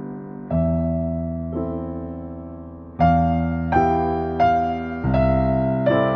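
Background piano music: slow chords and single notes struck one after another, each ringing out and fading, coming closer together in the second half.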